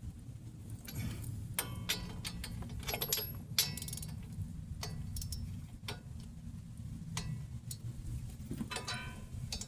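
Hand tools clicking and clinking against metal brake and hub parts as they are fitted back together: about fifteen sharp, irregularly spaced clicks, some ringing briefly, over a low steady rumble.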